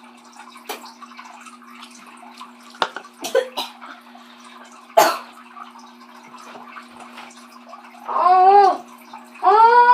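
Steady trickling water with a low hum, broken by a few sharp clicks and crackles in the first half. Near the end come two short voiced groans, each rising and then falling in pitch.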